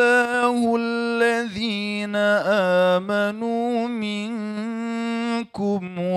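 A man chanting a Qur'an recitation (tilawah) in melodic style, drawing out long held notes with wavering ornamental turns. He breaks briefly for breath near the end, then takes up the chant again.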